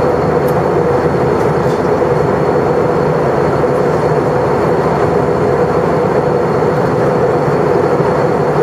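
Cabin noise inside an Airbus A321-200 in flight: the steady, unbroken rush of the jet engines and of air streaming past the fuselage.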